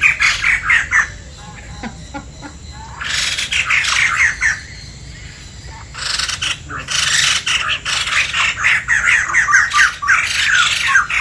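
Birds giving loud, harsh squawks in rapid strings: a short burst at the start, another about three seconds in, and a long continuous run from about six seconds in to the end.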